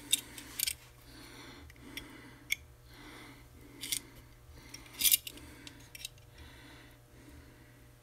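Small metal hand tools clicking and clinking on a workbench while coax cable is re-clamped in a small vise and its jacket scored with a hobby knife. There are irregular sharp clicks, the loudest about five seconds in, with faint scraping between them.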